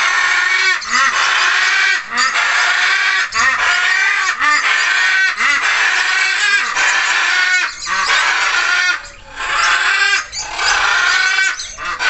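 A flock of budgerigars chattering and warbling nonstop, with a short lull about nine seconds in.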